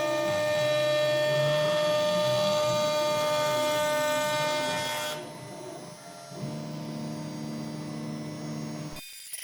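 CNC router spindle running while it carves a relief into cherry wood, a steady whine made of many stacked tones over the rumble of the cut. About five seconds in, it gets quieter and settles into a lower, different tone.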